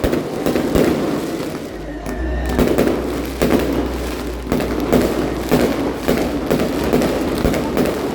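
Fireworks going off: many bangs and pops overlapping in an irregular, continuous barrage.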